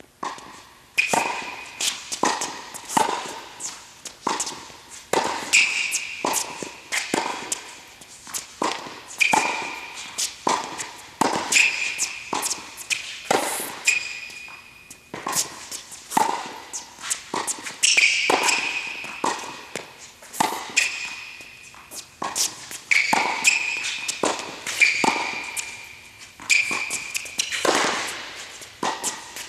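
Tennis balls struck back and forth in a fast net volley rally: sharp racket-on-ball hits, about one to two a second, echoing in an indoor court hall.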